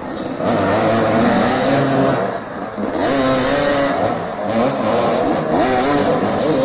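Several motoball motorcycles revving hard at close range as the riders scramble for the ball, with overlapping engine notes rising and falling. The noise eases briefly about two and a half seconds in.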